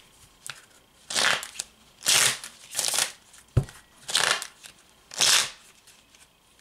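A deck of cards being shuffled by hand: five short swishes of the cards, about one a second, with a single knock about three and a half seconds in.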